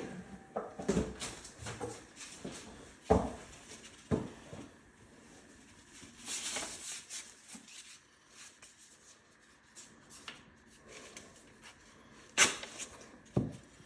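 Drywall knife working paper tape into joint compound on a ceiling crack: soft scrapes with scattered light knocks and clicks.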